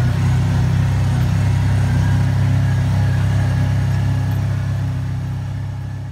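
Engine of a side-by-side utility vehicle running steadily at an even pace on a dirt track, a loud low hum that holds its pitch. The sound fades down over the last second or so.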